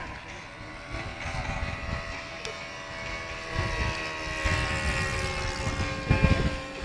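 Radio-controlled model airplane buzzing overhead, a steady high-pitched drone that drops slightly in pitch as it flies. A few low rumbles on the microphone come and go.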